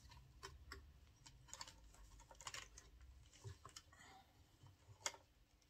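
Near silence with faint scattered clicks and rustles as fabric and stiff crinoline braid are handled and set under a sewing machine's presser foot. One sharper click comes about five seconds in.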